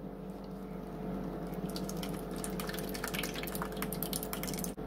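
Evaporated milk pouring from a can into a plastic measuring cup, a stream of liquid splashing and trickling that grows busier from about a second and a half in as the cup fills.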